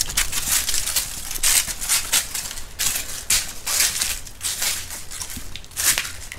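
Footsteps crunching through dry fallen leaves on concrete, about two steps a second.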